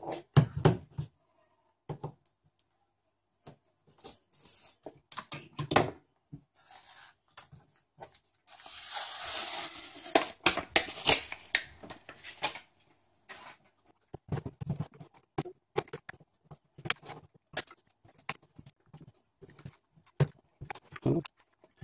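Plastic laptop battery case being pried and cut open with a hook-bladed knife: a string of clicks, cracks and knocks, with a longer stretch of rasping noise about nine seconds in.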